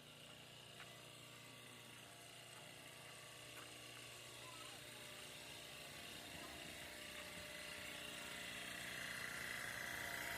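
A steady mechanical hum and whir that slowly grows louder, with a few faint clicks.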